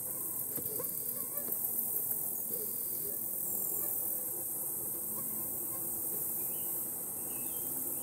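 Steady high-pitched insect chorus droning without a break, with a few faint short bird chirps in the second half.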